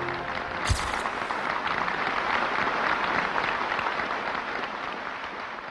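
Audience applauding, slowly fading away, with one sharp click about a second in.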